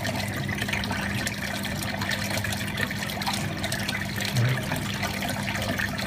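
Washing machine drain water running from the drain tube into an open floor-trap outlet: a steady rush of flowing water, with a low steady hum underneath.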